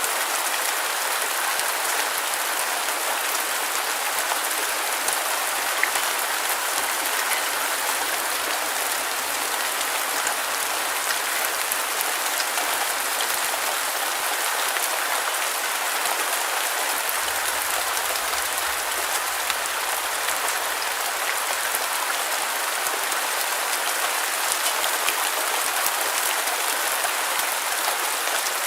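Steady heavy rain falling on a surface: a dense, even hiss with many small drop ticks scattered through it.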